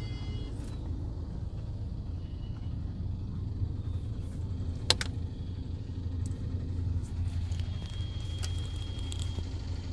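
Steady low rumble of a moving car heard from inside the cabin, with a single sharp click about five seconds in.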